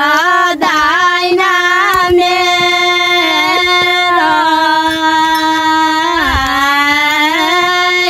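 A high voice singing a slow melody, holding long notes and sliding and wavering between them, with a dip in pitch about six seconds in.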